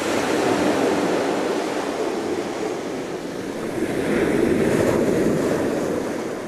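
Ocean surf breaking on a beach: a rushing wash of waves that swells twice and fades away near the end.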